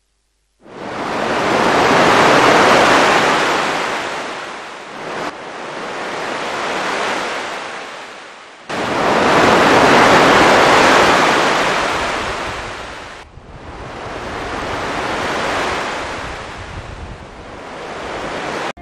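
Sea surf on a sandy beach, waves breaking and washing up the shore in a loud rushing noise that swells and fades every few seconds, with wind on the microphone. The sound jumps abruptly several times.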